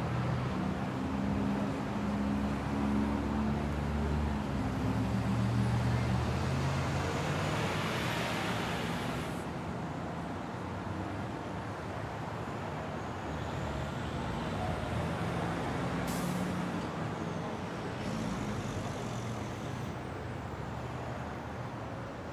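City street traffic with a heavy vehicle's engine running close by for the first few seconds. A hiss builds and cuts off sharply about nine seconds in, and there is a single sharp click about sixteen seconds in.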